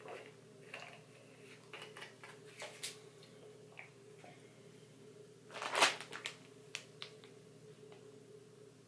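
Small handling noises: a plastic bottle cap being closed, then a plastic zip-top bag holding rice cakes rustling, with one louder crinkle a little past halfway. A steady low hum runs underneath.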